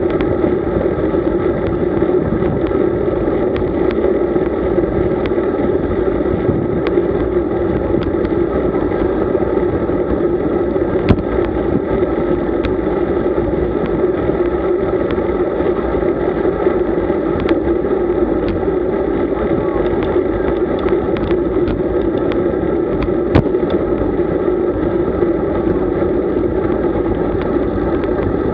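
Steady rushing wind and road noise from a road bicycle ride, with scattered sharp ticks and knocks; the loudest come about 11 and 23 seconds in.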